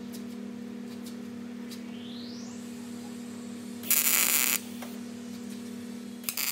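Steady electrical hum, then a short tack weld crackling for under a second about four seconds in, with a shorter burst near the end, as an end cap on a steel tube motorcycle rear loop is tacked in place.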